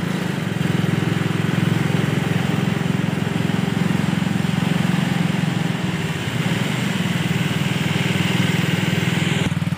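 Motorcycle engine running steadily at an even pace, with a brief break just before the end.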